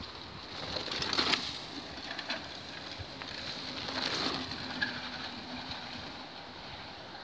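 Two riders on bikes passing along a dry dirt trail, their tyres rolling over the dirt. The sound swells about a second in and again about four seconds in.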